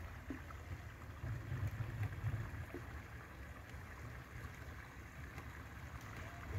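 Outdoor river-bank ambience: an uneven low rumble of wind buffeting the microphone over a faint, steady hiss.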